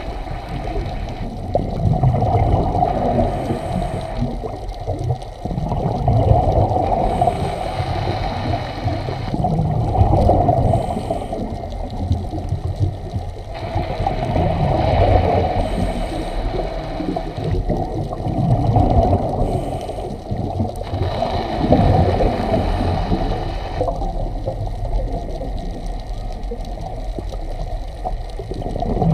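Scuba diver breathing through a regulator underwater, heard as hissing and bubbling that swells about every six to seven seconds over a steady low rumble of water.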